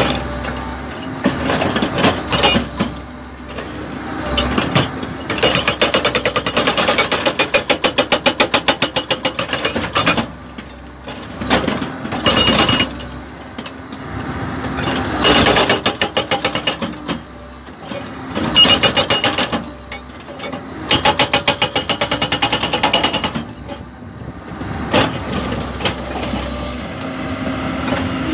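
SHS S50 hydraulic rock breaker on a Komatsu PC130 excavator hammering rock in repeated bursts of rapid blows, several a second, each burst lasting a few seconds. The excavator's diesel engine runs between the bursts.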